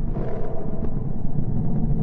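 A deep, steady rumbling drone from a NASA space sonification, in which radio and plasma-wave data recorded by spacecraft has been converted into audible sound.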